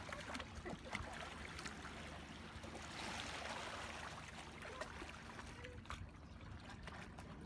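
Shallow seawater splashing and trickling as two dogs wade through it, with many small irregular splashes from their legs and a fuller rush of water about three seconds in.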